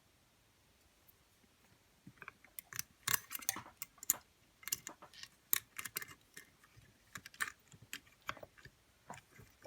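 Irregular small metallic clicks and taps from a lever lock and its picking tools (tension tool and lifter) being handled, starting about two seconds in.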